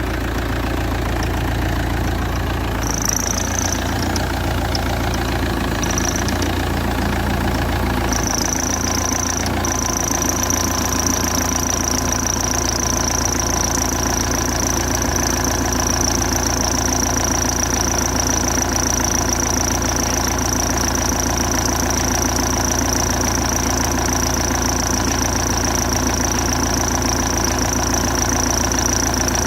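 Car engine idling, with noise from the alternator belt whose tensioner is starting to fail. A thin, high, steady tone comes in about three seconds in, on and off at first, and holds continuously from about ten seconds.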